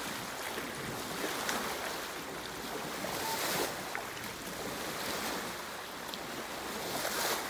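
Steady rushing noise of a shallow stream mixed with wind buffeting the microphone, swelling briefly a few times.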